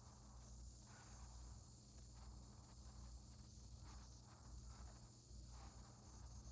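Near silence: a faint steady low hum and hiss, with a few soft, indistinct rustles.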